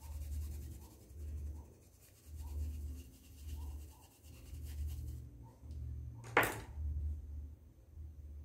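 Paintbrush scrubbing paint into a cotton dish towel to blend it, in repeated rubbing strokes roughly one a second. A single short sharp noise about six seconds in is the loudest moment.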